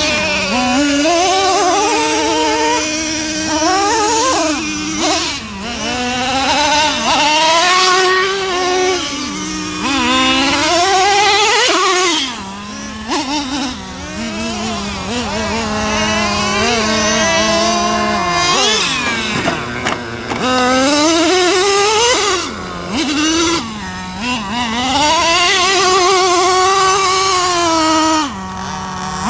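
Traxxas Revo 3.3's 3.3 cc two-stroke nitro engine revving up and down again and again under hard driving, its pitch rising and falling with each burst of throttle and dropping away briefly several times.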